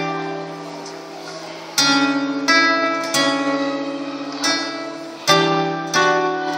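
Acoustic guitar strumming chords live, each chord struck and left to ring out before the next, about once a second, playing the opening of a song before the singing comes in.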